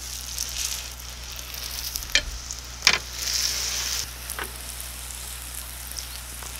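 Potato-snack batter sizzling as it fries in a hot square pan, while tongs and a spatula spread and turn it. There are sharp clicks of the utensils against the pan about two and three seconds in.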